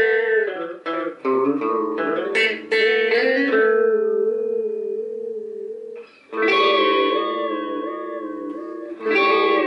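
Semi-hollow electric guitar played through an Electra EP-401 digital delay, which is being tried out after repair. A run of picked notes and chords is left to ring, then two more chords follow, about six and nine seconds in. Their sustained notes waver in pitch.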